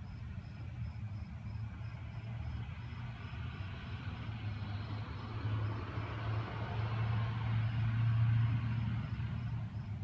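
A vehicle passing: a rush of noise that grows, is loudest about eight seconds in, then fades. Under it is a steady low hum, and crickets chirp in a fast, even pulse.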